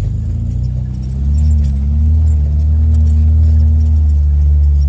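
An off-road vehicle's engine heard from inside the cabin as a loud, low, steady hum while driving slowly over rough ground. The engine note rises a little about a second in and eases off near the end.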